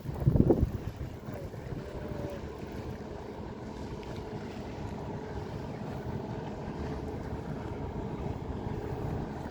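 Steady low drone of a passing boat's engine carried across the water. Wind buffets the microphone in a loud burst in the first half second.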